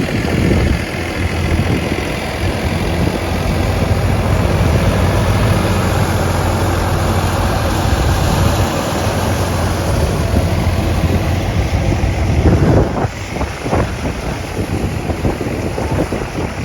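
Wheat thresher driven by a tractor, running steadily with a loud, even drone. The sound changes about thirteen seconds in and gets a little quieter.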